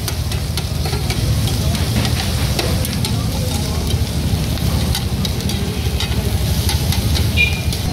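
Pork sisig sizzling on a hot cast-iron sizzling plate while a metal spoon and tongs stir and scrape it, with frequent short clinks of metal on the plate. A steady low rumble runs underneath.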